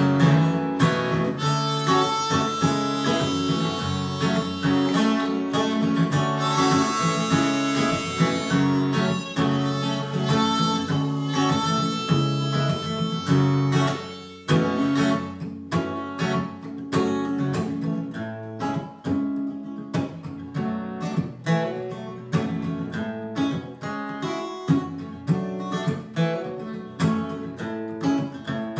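Harmonica played over a strummed Epiphone acoustic guitar. About halfway through the harmonica stops and the guitar keeps strumming alone.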